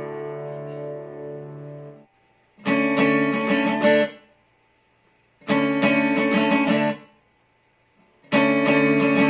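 SQOE Cranberries 41 acoustic guitar strummed with a pick: a chord rings out and is stopped about two seconds in, then short bursts of strummed chords follow a few seconds apart, with silence between them.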